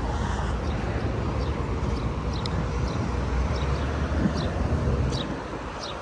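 Steady outdoor noise of road traffic and wind on the microphone, a low rumble, with faint light clicks recurring about every half second.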